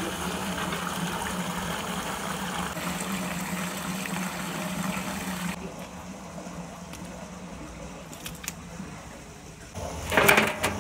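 Carp thrashing and churning the water of a shallow pond, over a steady low hum. After a quieter stretch with a few light knocks, a loud burst of splashing about ten seconds in as a carp is lifted from a landing net into a water-filled metal barrel.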